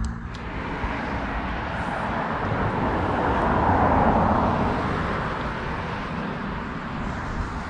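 A passing vehicle: a steady rushing noise that swells to a peak about four seconds in and then fades away.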